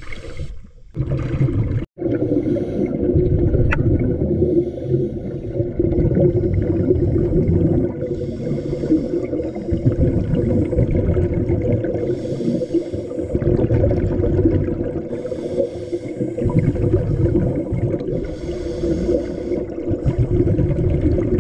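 Scuba diver's regulator breathing heard underwater: a bubbling burst of exhaled air every few seconds over a steady low rumble of water. The audio briefly cuts out about two seconds in.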